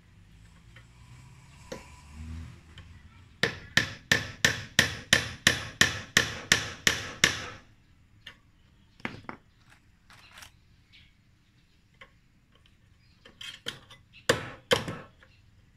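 Claw hammer blows on the workpiece: a quick, even run of about a dozen strikes, roughly three a second, then a pause with a few single taps and a short burst of blows near the end.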